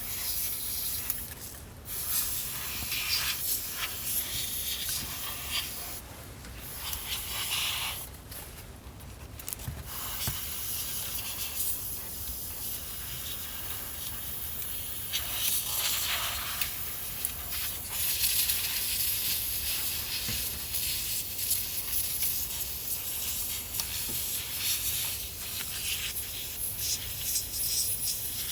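Compressed-air duster can spraying in hissing bursts, with short breaks in the first ten seconds and then nearly without pause, blowing dust out of a boombox. The can has chilled from use and is spraying weakly.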